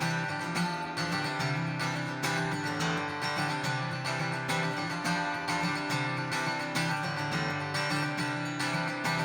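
Acoustic guitar strummed in a steady rhythm: the instrumental intro to a worship song.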